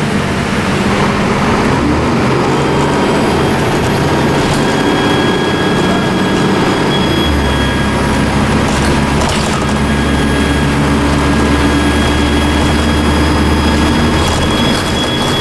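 Dennis Trident II double-decker bus engine running with a high, steady turbocharger whistle. The low engine note grows stronger about seven seconds in as it pulls harder.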